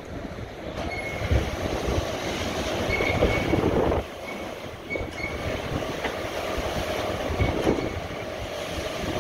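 Wesumat Evolution rollover car wash running its brush cycle: big rotating wash brushes turning against the car with a steady mechanical rumble and swish. Brief high squeaks come several times.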